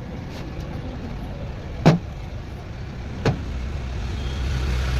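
A motor vehicle engine rumbles low and steady, growing louder near the end. Two short, sharp knocks come about two and three seconds in.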